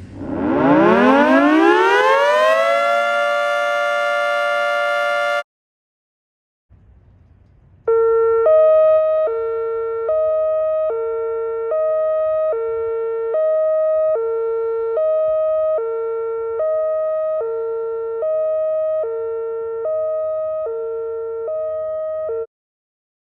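Two warning sirens one after the other. The first winds up, its pitch climbing steadily for about three seconds, then holds one note until it cuts off abruptly. After a short gap, a two-tone siren alternates between a high and a low note, each held about 0.7 s, for about fourteen seconds.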